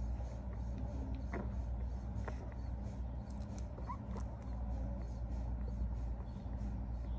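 Newborn puppies nursing, with a few short squeaks and small suckling clicks over a steady low hum.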